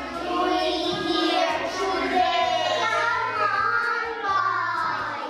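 Group of young children singing together in unison, holding long notes.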